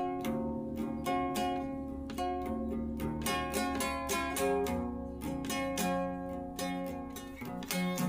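Music played on a plucked string instrument: a run of quick picked notes, several a second, each ringing briefly.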